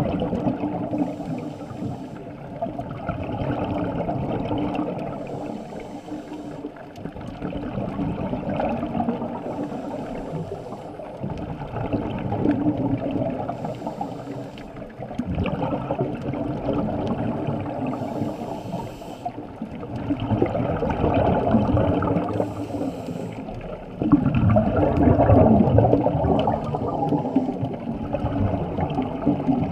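Scuba diver breathing through a regulator underwater, in a cycle that repeats about every four seconds: a short hiss on each inhalation, then a burst of bubbling noise as the exhaled air escapes. A steady low hum runs underneath.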